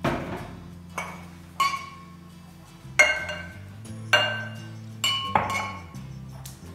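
A ceramic mug clinking against the rim of a glass mixing bowl and against other mugs as milk is poured in: about seven sharp, ringing clinks, irregularly spaced.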